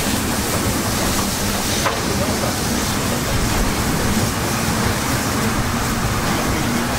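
DB class 23 steam locomotive 23 023 running at speed, heard from beside its cab: a steady, loud rush of locomotive running noise and air streaming past, with a single sharp click about two seconds in.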